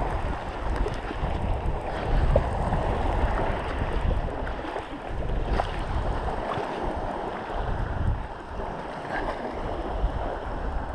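Wind buffeting the microphone over waves washing in shallow sea water, an uneven rushing noise with a low rumble.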